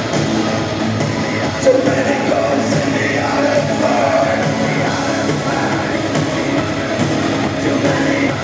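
A live rock band playing loud, with electric guitars and a singer's vocals over the band.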